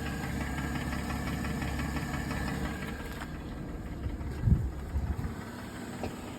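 Mercedes M272 3.5-litre V6 idling warm with a rattling knock from the left bank, a piston rattle that an endoscope later traces to a hard-scored cylinder six. The running gets quieter after about three seconds, with one dull thump about four and a half seconds in.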